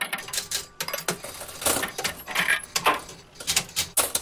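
Intro sound effects: a quick, irregular run of metallic clinks and clicks, coin-like, with a few louder hits.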